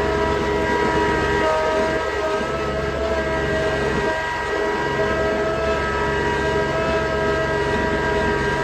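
Tractor engine running steadily under load while pulling a box blade, with a steady whine.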